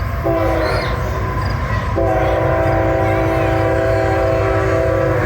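Locomotive air horn sounding a chord of several notes: a short blast, then a long held blast starting about two seconds in, over the low rumble of the train.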